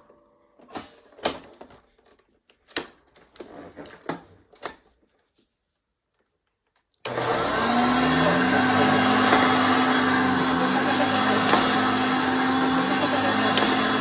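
A 1978 Hoover Concept One upright vacuum cleaner running on carpet: a loud, steady motor noise with a steady low tone, starting abruptly about halfway through. Before it come a few scattered clicks and knocks.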